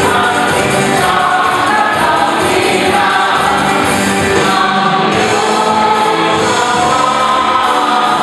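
Church choir singing with music: held notes changing every second or so, steady and loud throughout.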